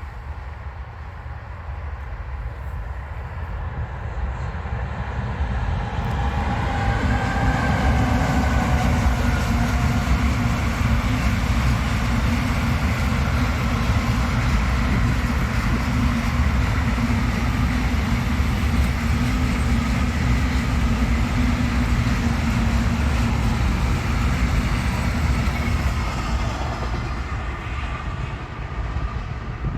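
A train passing close by: it builds over the first several seconds, runs loud and steady for nearly twenty seconds, then fades near the end. A whine is heard about seven seconds in, as the head of the train goes by.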